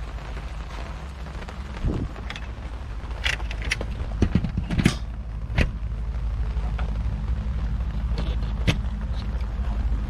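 A low, steady rumble with a handful of scattered clicks and knocks through it.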